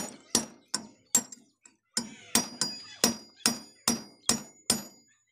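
A hand hammer strikes a steel punch held against the central nut of a tractor's brake assembly. There are about a dozen sharp metallic blows, two or three a second, each with a brief ring. The blows pause briefly a little over a second in.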